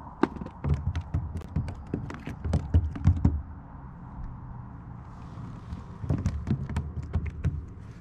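Rapid taps, clicks and dull knocks of fishing gear being handled against a plastic kayak, in two bursts: one over the first few seconds and another about six seconds in.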